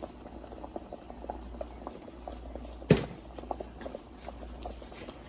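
Thick tomato sauce simmering in a pot, small bubbles popping irregularly, with one sharp click about three seconds in.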